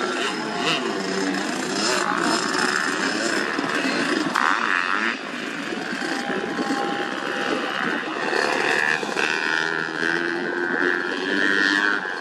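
Motocross dirt bikes' engines running and revving, with people's voices mixed in.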